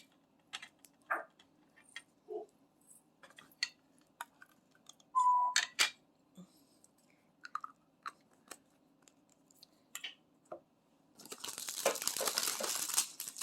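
Scattered small plastic clicks and taps from handling diamond-painting drill bags and containers, with a short squeak about five seconds in. From about eleven seconds, steady crinkling of a plastic drill bag being handled or torn open.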